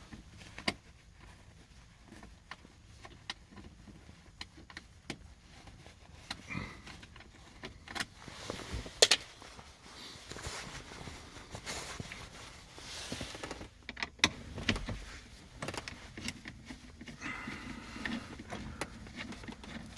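Quiet, irregular small clicks, scrapes and knocks of hand work in a car's center console: Phillips screws being backed out with a screwdriver and plastic dash trim handled. The sharpest clicks come a little under a second in and about nine seconds in.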